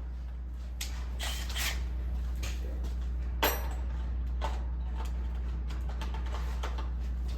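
Scattered knocks and clicks of tools and materials being handled during electrical installation work, with one sharp knock about three and a half seconds in, over a steady low hum.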